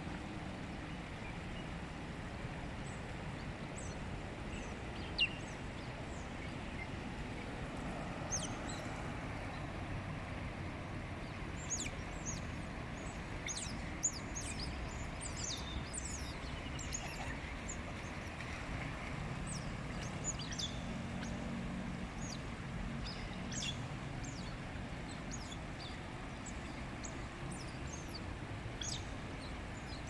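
Steady low rumble of road traffic, with many short, high chirps coming repeatedly from about eight seconds in until near the end. A single sharp click about five seconds in.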